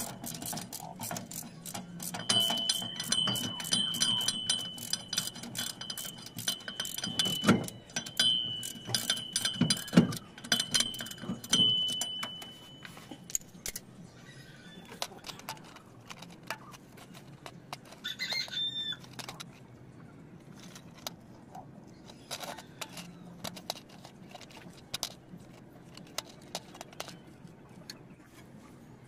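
Rapid metallic clicking and rattling from hands and tools working a car's handbrake cable and rear brake fittings, with a few louder knocks in the first half, then thinning to scattered ticks.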